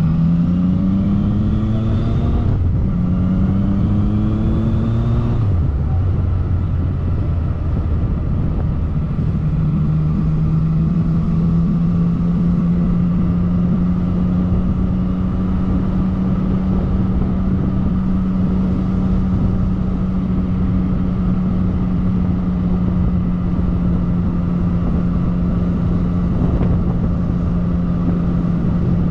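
Yamaha MT-09 Tracer's three-cylinder engine pulling up through the gears, with an upshift about two and a half seconds in and another about five and a half seconds in. It then holds a steady note at constant speed, with wind and road noise throughout.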